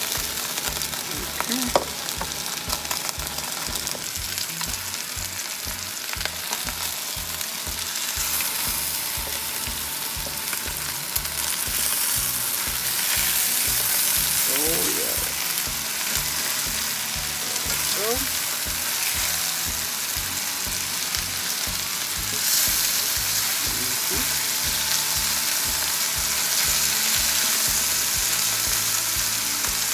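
Skinless chicken thighs browning in hot coconut oil in a pan, a steady sizzle and spatter of frying.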